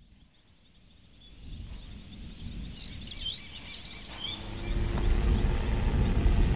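Birds chirping in a quick series of short, high calls over a low outdoor rumble that grows steadily louder, swelling further about two-thirds of the way in.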